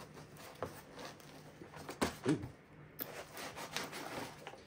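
Hands working a telescope mount loose from a cut-foam case insert: foam rubbing and scraping, with scattered light knocks and a louder knock about two seconds in.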